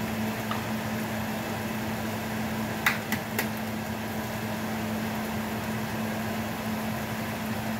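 Steady mechanical hum of a running kitchen appliance over a faint even hiss, with a few sharp clicks about three seconds in.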